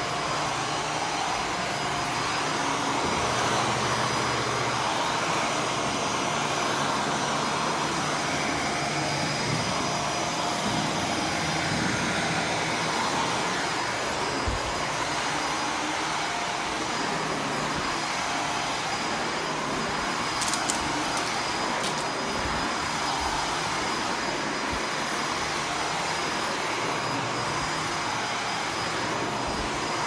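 Shark vacuum cleaner running steadily while being pushed over carpet, its motor giving a constant rushing sound with a faint high whine on top. A few brief clicks come about two-thirds of the way through.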